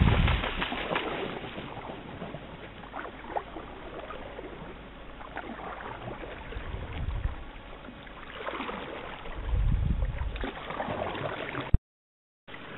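Canoe on the water: splashing of water and paddle, with wind buffeting the microphone at the start and again later on. The sound drops out briefly near the end.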